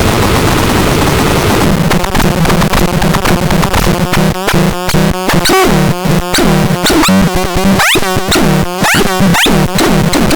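Loud, harsh electronic noise being demonstrated, with a low drone, stuttering chopped bursts and several quick rising pitch sweeps about two thirds of the way through.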